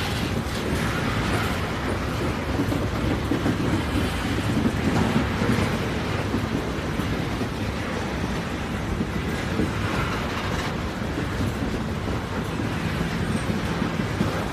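A train running on rails: a steady, unbroken rumble of wheels and track noise.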